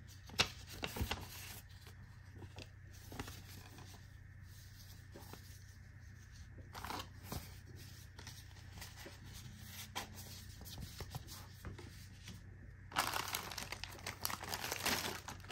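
Soft paper rustling and light clicks as a booklet and card are handled. About thirteen seconds in, louder crinkling of a clear plastic bag being opened.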